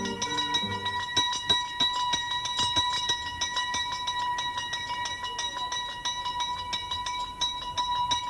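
Small hanging bell ringing continuously: a steady high ring kept going by many rapid, irregular clapper strikes. Guitar music ends about a second in.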